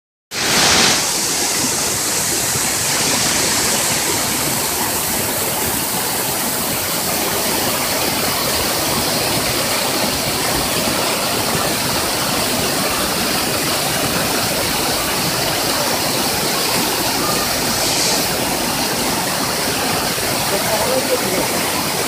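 Small rocky waterfall cascading over boulders: a steady, even rush of falling water, which cuts in sharply after a split-second gap at the start.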